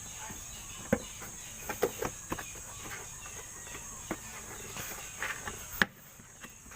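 Scattered light clicks and taps from a truck's wiring harness being handled while it is checked for burnt wires, over a steady high insect drone. A sharper click comes near the end.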